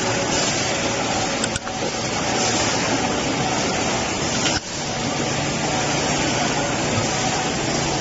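Steady running noise of a vertical injection moulding machine used for moulding USB cable ends: an even hiss with a faint low hum, dipping briefly twice.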